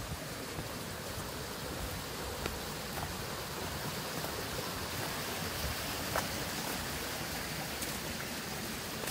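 Steady rush of flowing river water, with a few faint ticks about two and a half and six seconds in.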